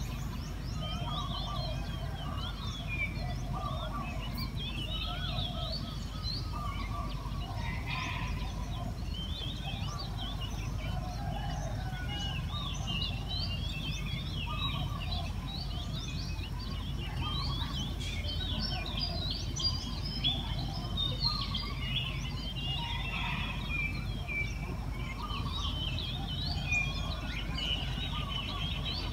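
A dawn chorus of many birds chirping and trilling at once, with some lower calls among them, over a steady low rumble.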